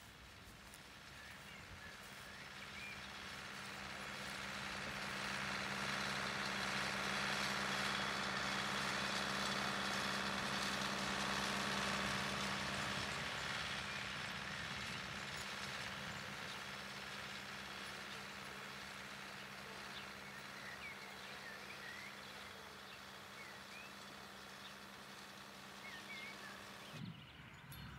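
A vehicle engine running with a steady low hum. It grows louder over the first several seconds, is loudest around the middle, then slowly fades. Small birds chirp faintly now and then.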